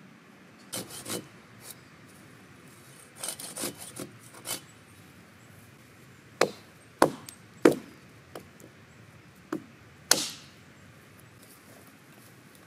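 A hatchet chopping into green Japanese cedar branches, six sharp separate strikes spaced under a second apart. Before them come a few softer knocks and scraping rustles of wood.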